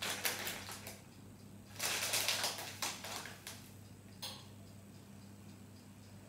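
Spice shaker being shaken, giving two bursts of rapid rattling ticks, a short one at the start and a longer one about two seconds in, followed by a single click a little after four seconds.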